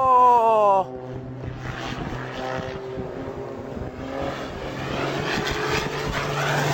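Aircraft engine noise: a tone falling in pitch for about the first second, then a steady drone with a noisy rush.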